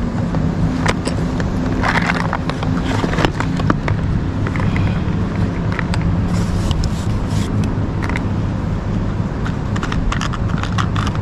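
Plastic tackle box clicking and rattling as it is opened and hooks are sorted through, with short scrapes, over a steady low engine hum.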